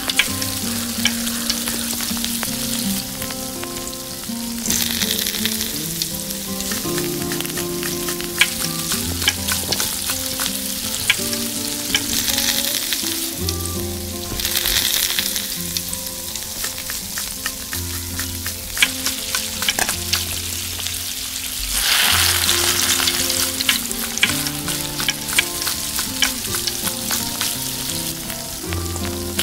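Hot oil sizzling and spitting in a miniature steel pot as whole spices and sliced onions fry, with sharp clicks from a small spoon stirring. The sizzle swells in loudness a few times.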